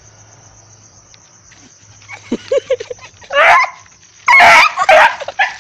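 A dog barking a few short times, the calls starting about two and a half seconds in and loudest a little after four seconds.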